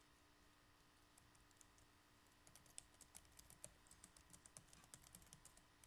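Faint typing on a computer keyboard: soft, irregular key clicks, sparse at first and coming thicker and faster about two and a half seconds in.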